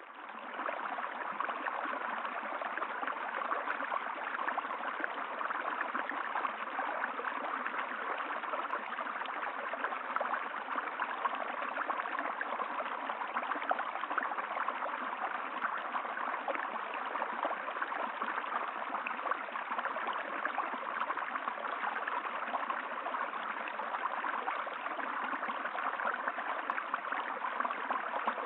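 Steady flowing water, like a stream running over rocks, fading in during the first second.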